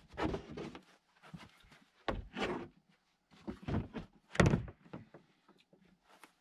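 Plywood table top and 2x4 wooden leg being knocked and shifted into place on a car's cargo floor: a few dull wooden thunks and scrapes. The sharpest thunks come about two seconds and about four and a half seconds in, the second the loudest.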